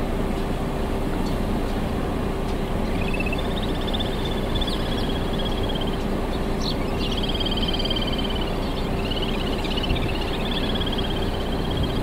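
Little grebes giving high, rapid trilling calls, starting about three seconds in and repeating in runs of a second or two, over a steady low background rumble.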